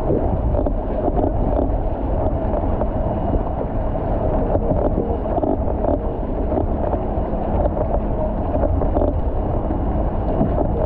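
Outrigger canoe running through choppy water: a steady rush of water splashing along the hull, with wind buffeting the microphone.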